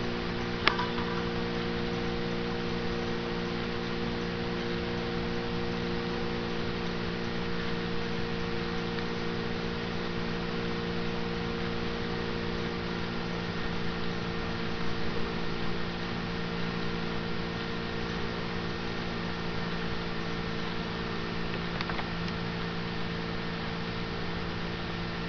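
Steady electrical hum over a constant hiss, unchanging throughout, with a faint click just after the start.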